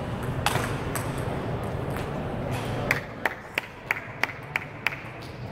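Table tennis ball: a couple of sharp clicks of ball on bat and table early on, then from about halfway, seven light pings at an even pace of about three a second as the ball is bounced repeatedly, over a steady hum of the sports hall.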